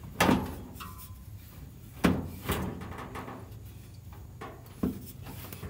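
Metal parts of an opened-up front-load clothes dryer being handled, giving four separate knocks and clunks with a short ring after each; the first two are the loudest.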